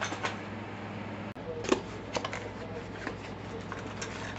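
Cardboard boxes handled and opened by hand: cardboard and paper rustling, with several short sharp knocks, the loudest a little under two seconds in.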